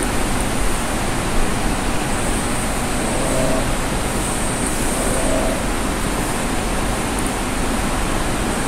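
Steady, even rushing background noise with a few faint brief tones.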